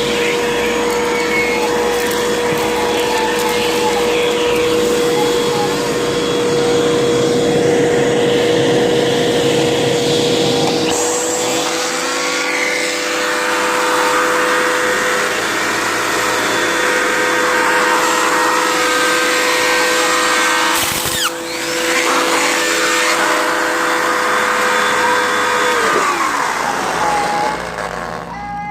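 Hoover vacuum cleaner running with a steady motor whine and crunching of debris being sucked up. The sound changes about a third of the way in, there is a sharp click near the end, and then the motor winds down, its pitch falling as it is switched off.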